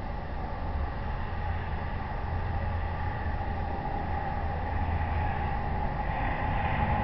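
Steady low rumble with an even hiss, no distinct event; the higher hiss swells slightly about six seconds in.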